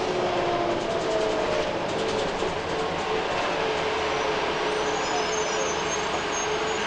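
Inside a 2008 Orion VII NG CNG transit bus under way: the Cummins ISL-G inline-six natural-gas engine and ZF automatic transmission running over steady road noise. A drivetrain whine rises a little in pitch in the first second or so, then holds steady.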